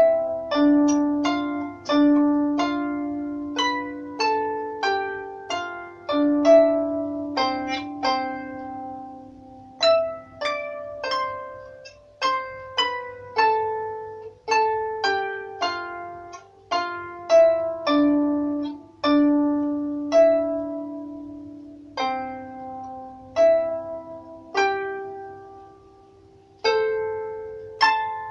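19-string Celtic harp played by hand: an unhurried melody of single plucked notes over ringing bass notes, each note struck and left to fade. Near the end the playing thins out, with a brief pause before a few last notes.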